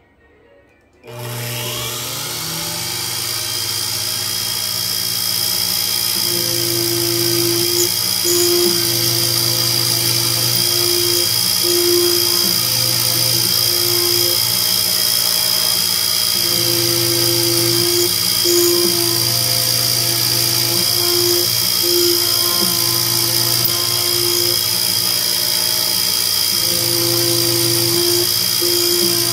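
Spindle of a Sherline CNC milling machine starting about a second in and then running at 10,000 rpm with a steady high whine while a carbide drill cuts holes in 7075 aluminium. Lower hums cut in and out every second or two as the machine's axes feed.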